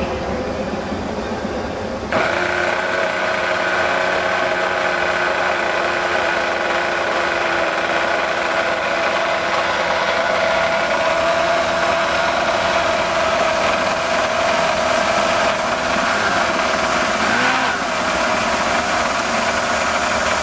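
Small model engine on an RC airboat running steadily; about two seconds in it steps up to a louder, higher-pitched run and holds there, with a brief dip a little before the end.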